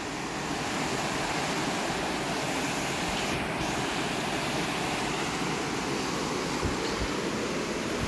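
Rushing water of a rocky stream, a steady, even rush with no breaks.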